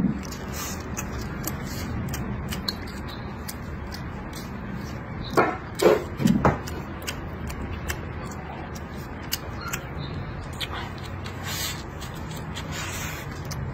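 Close-miked eating sounds: chewing, with small clicks of chopsticks against the plate. Three louder short sounds come a little before the middle.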